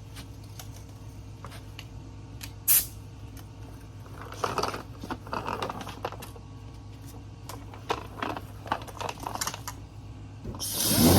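Clicks and short scraping sounds of handling the sanding tool and panel over a low steady hum, then near the end a power sander starts up with a hiss and a whine that wavers in pitch, fitted with 320-grit paper for sanding Bondo.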